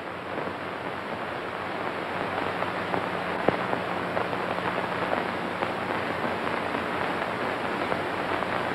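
Steady rain-like hiss, thick with small crackles and ticks, fading up over the first couple of seconds and then holding, over a faint low hum.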